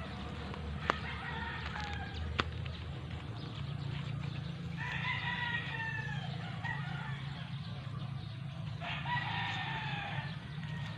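A rooster crowing twice, about five seconds in and again about nine seconds in.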